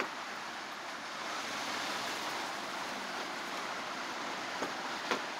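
A steady, even hiss of outdoor street background noise, with two faint taps near the end.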